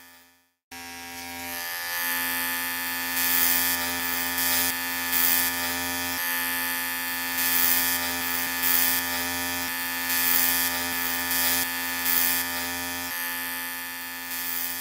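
Electric hair trimmer (hair clipper) buzzing. It stops briefly, is switched on again a little under a second in, and runs steadily with repeated short swells of a brighter, louder buzz. The buzz grows quieter near the end.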